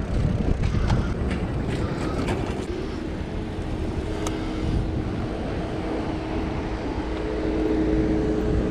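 Wind buffeting the microphone while riding an electric bike at low speed, with a few light clicks early on. A steady two-note hum comes in about three seconds in.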